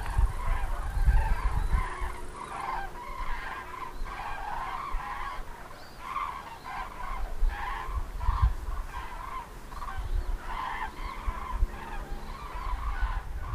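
A flock of common cranes calling in flight: many loud, trumpeting calls repeated and overlapping from several birds, over an intermittent low rumble.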